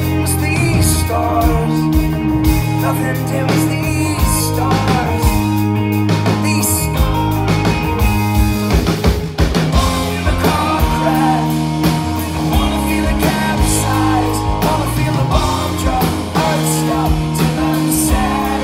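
Live rock band playing a song: electric guitar, bass guitar and drum kit.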